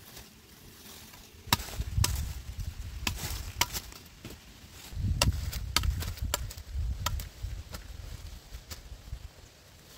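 Hand hoe chopping into soil and cassava roots: an irregular run of sharp cracks with dull thuds, in two bouts of blows.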